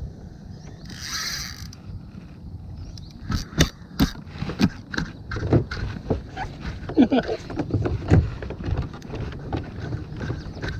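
Spinning reel and rod being handled up close: irregular clicks and knocks of the reel's metal parts, after a short hiss about a second in.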